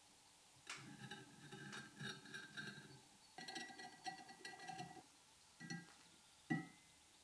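Faint light metallic clinks and taps, a few of them leaving a brief ringing tone, as small metal parts or tools are handled.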